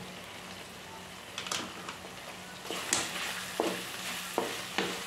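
Chicken, onion and tomato frying in ghee in a metal kadai with a low sizzle. About halfway through a wooden spatula starts stirring in the chilli powder, scraping the pan in several short strokes, and the sizzle grows livelier.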